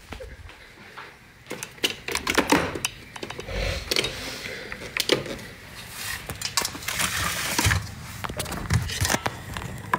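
Kitchen clatter: scattered, irregular clicks and knocks of utensils and cookware, with a few dull thuds.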